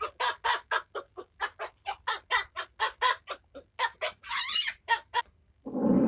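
Chicken clucking in a fast run of short calls, about four a second, with one longer squawk about four seconds in. Near the end a louder, lower animal sound begins.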